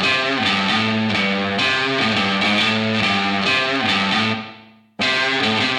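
Background music led by guitar. It fades out about four seconds in and starts again abruptly a moment later.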